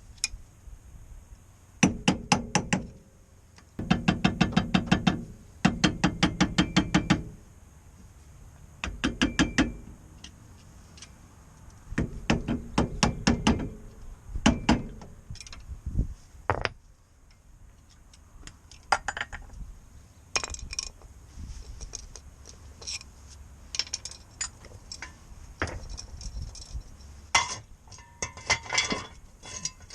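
Ratchet wrench clicking in repeated bursts of rapid, evenly spaced clicks while bolts are worked off a front hub, followed by scattered metallic clinks of tools and parts being handled.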